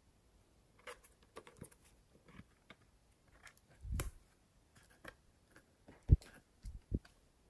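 A round plastic eyeshadow compact being handled and opened: scattered small clicks and taps, a louder knock about halfway through, and two sharp knocks near the end.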